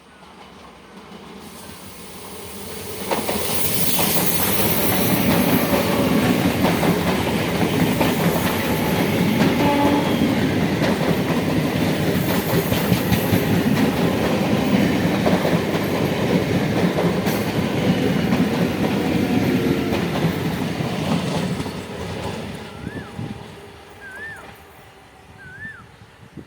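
Indian Railways ICF electric local train passing at speed: the rumble and rapid wheel clatter build over the first few seconds, hold loud for about twenty seconds, then die away. A few short chirps come near the end.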